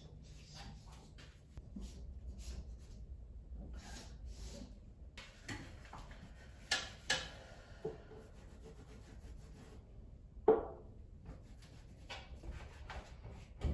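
A cloth wiping hard surfaces, with a few light knocks and clunks as household objects are handled. The loudest is a single woody knock with a short ring about ten seconds in.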